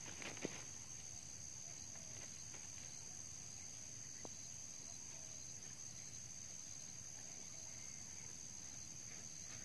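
Steady high-pitched drone of insects, with a brief scuffle right at the start from a red junglefowl rooster struggling in the grass.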